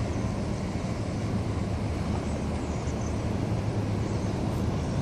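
Steady low rumble of outdoor background noise, unchanging throughout, with a few faint high chirps about halfway through.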